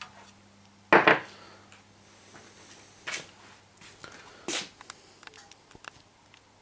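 A loud knock about a second in, then two lighter clunks and a scatter of small clicks, like objects being handled and set down, over a faint steady low hum.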